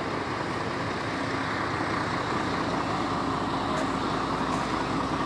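Heavy diesel engine of a tipper semi-trailer truck running close by, a steady rumble with a droning hum that grows stronger about halfway through as it gets slightly louder.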